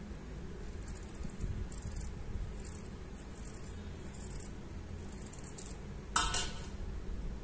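Faint scratchy handling rustles, then one sharp clink of glassware that rings briefly, about six seconds in.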